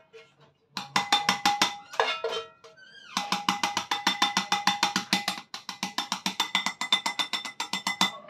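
A red plastic spatula scraping and knocking rapidly against a non-stick frying pan, about six even strokes a second, the pan ringing under them. The strokes pause briefly about two seconds in.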